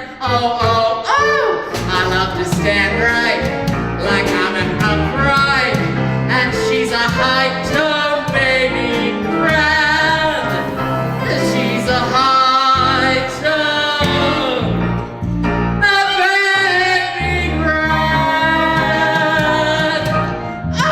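A soprano singing sustained, operatic-style notes with heavy vibrato over piano accompaniment.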